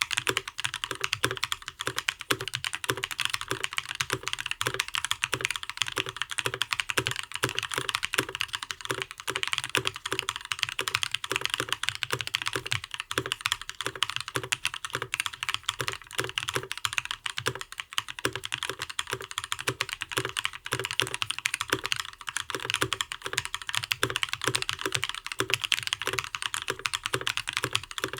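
Custom mechanical keyboard with lubed Gazzew Linear Thock linear switches, an aluminum plate and ePBT PBT keycaps, typed on continuously at a brisk pace. It makes a dense, uneven stream of keystroke clacks with no pauses.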